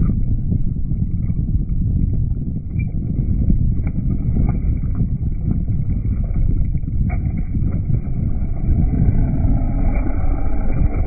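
Wind buffeting the microphone in a steady low rumble, with a few faint clicks. Near the end, water splashing as a smallmouth bass is hauled thrashing out of the ice-fishing hole.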